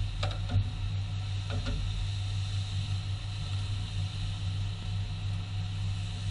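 Honda CR-V's 2.0-litre K20A4 four-cylinder engine idling steadily, with a few light clicks in the first two seconds.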